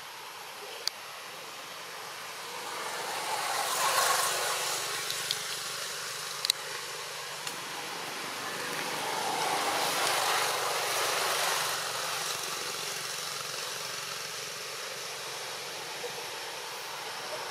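Engine noise of a passing vehicle, swelling and fading twice, over a steady outdoor background, with a few sharp clicks.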